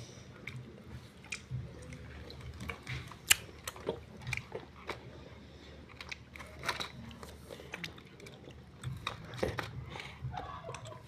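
Chocolates being handled in a plastic chocolate-box tray with foil wrappers: scattered crinkles, clicks and taps, one sharper click about three seconds in. A child chews chocolate.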